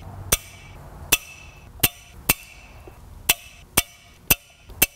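Click-type torque wrench clicking as the clutch pressure-plate bolts reach their set torque of 30 newton metres. About eight sharp single clicks, spaced half a second to a second apart.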